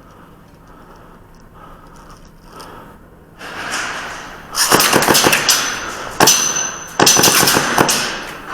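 Airsoft gun firing in rapid full-auto bursts, three strings of quick sharp cracks in a row starting about halfway in.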